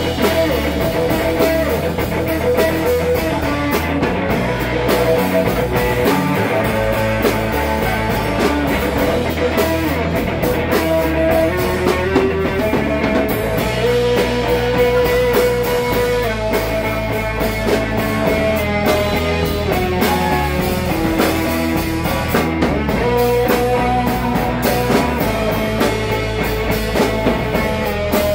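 Live rock band playing: electric guitar holding long notes that step up and down in pitch over bass guitar and drum kit.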